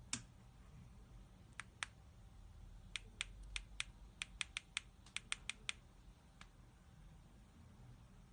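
Sharp, dry clicks from a holographic red-dot sight being handled: a few single clicks, then a quick irregular run of about a dozen, then one more.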